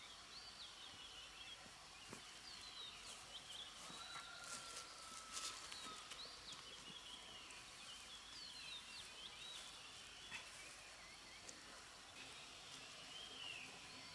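Faint outdoor ambience of birds chirping, many short rising and falling calls, with a few light taps about halfway through.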